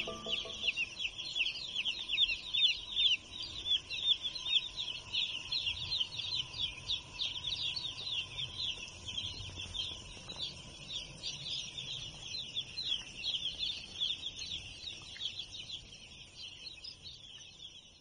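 A large flock of young chicks peeping: many high, short, downward-sliding peeps overlapping into a continuous chorus that fades away near the end.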